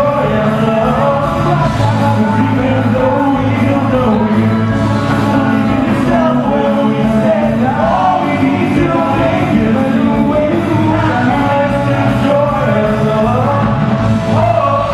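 A live band plays a pop-rock song with singing, loud through a PA in a large hall and heard from the audience.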